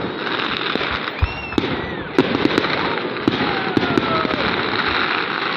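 Fireworks going off: dense crackling with many sharp cracks, a deep bang about a second in, and a few whistles gliding up and down in pitch.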